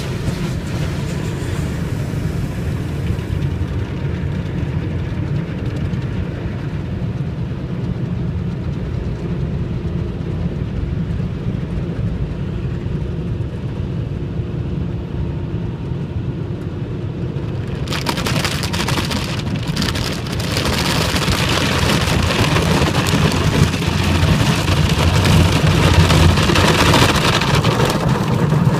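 Car wash water spray hitting a car over a steady low rumble. The spray comes in suddenly about two-thirds of the way through and grows louder.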